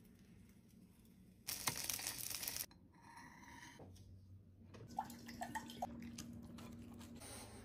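Wet dog food being scooped and scraped from a plastic cup, a short squishy rustling burst, then a French bulldog eating from a bowl with a run of small wet clicks of licking and chewing.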